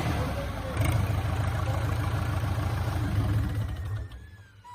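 Swaraj tractor's newly fitted diesel engine running at a steady idle on its first start. Its sound drops away sharply about four seconds in.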